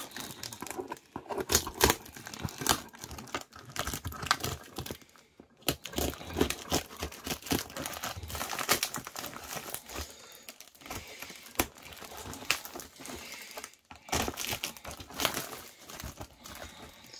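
Plastic wrapping being cut with a small pocket-knife blade and peeled off a cardboard parcel, crinkling and tearing in irregular crackles.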